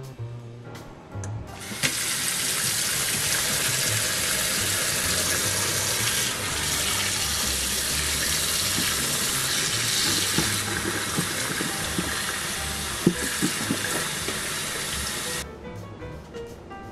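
Tap water running hard onto eggs in a stainless steel bowl in a sink, a steady splashing rush that starts about two seconds in and cuts off about two seconds before the end, with a few light knocks in its later part.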